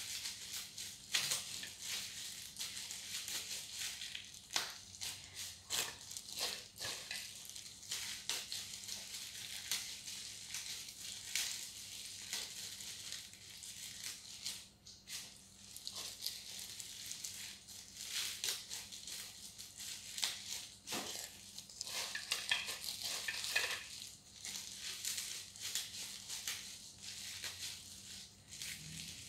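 Clear disposable plastic gloves crinkling and leafy herb sprigs rustling as leaves are picked off the stems by hand: a steady run of small, irregular crackles.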